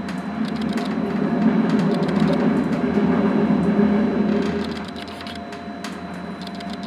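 Steady rolling rumble of an intercity passenger car running on welded rail, heard from inside the car, with clusters of light clicks and no regular clickety-clack. The rumble eases off about halfway through.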